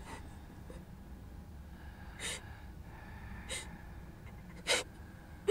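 A person's sharp breaths, three in a row about a second and a quarter apart, the last the loudest, over a low steady hum.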